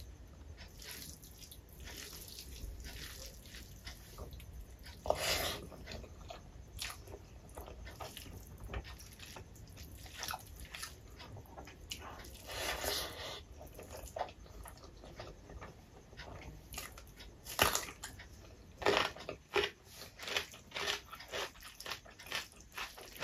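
Eating sounds: fingers mixing rice and curry on a plate, and chewing of mouthfuls, with many short clicks and smacks that come thicker near the end.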